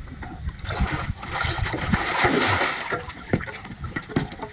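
Water splashing as a young tiger wades into a shallow pool, the splashing swelling and then easing off.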